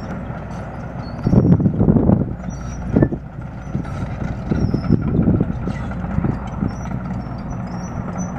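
Excavator's diesel engine running steadily, with bursts of crunching and knocking about a second in, at three seconds and again around five seconds.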